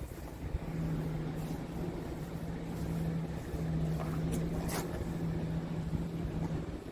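Diesel truck engine idling with a steady low hum. Two light clicks just after halfway.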